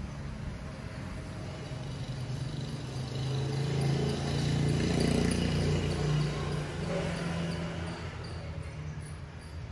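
A low, steady hum that grows louder around the middle and eases off again near the end.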